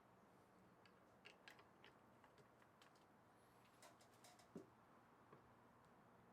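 Near silence with a dozen or so faint, scattered clicks and light taps, the strongest about four and a half seconds in, over a low steady hum.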